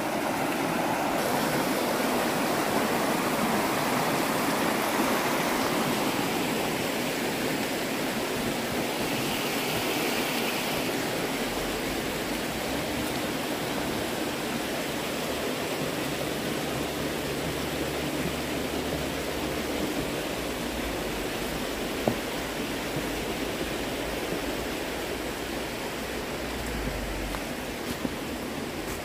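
Steady rush of a fast-flowing stream tumbling over rocks.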